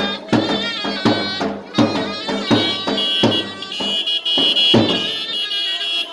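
Traditional Turkish wedding music: a davul drum beats about one and a half strokes a second under the shrill, reedy melody of a zurna. In the second half the melody settles onto a long, high held note while the drum keeps going.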